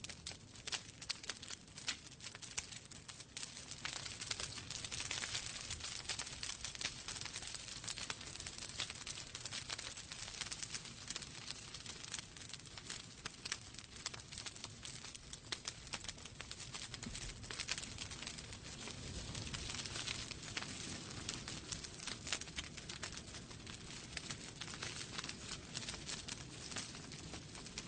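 Wood fire crackling in a fireplace: dense, irregular pops and snaps over a soft steady hiss.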